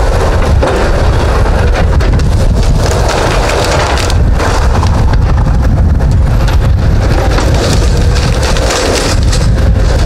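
Diesel engine of a tracked log loader running under load while its delimber strips the branches off red pine logs, the wood cracking and splintering over a steady low engine rumble.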